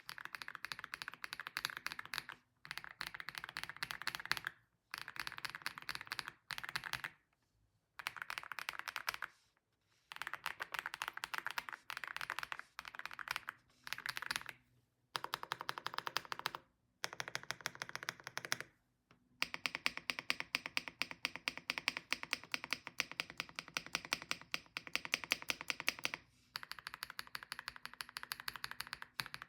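AULA F75 mechanical keyboard with Star Vector switches being typed on: rapid rolling keystrokes in bursts of a few seconds with short pauses, then separate presses of the backspace and enter keys, and from about two-thirds through, repeated spacebar presses. Picked up through a phone's microphone.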